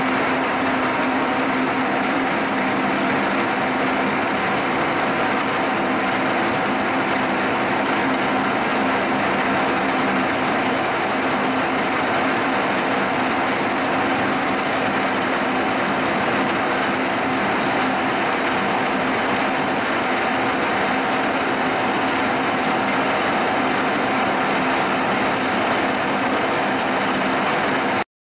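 Vertical milling machine taking a steady cut in a steel block with an end mill, the spindle running under load with a constant hum. It cuts off suddenly at the very end.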